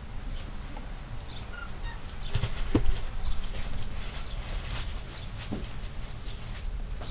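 Rustling and scuffling as a black Labrador puppy mouths and paws at a hand, with scattered small clicks and one louder thump a little under three seconds in.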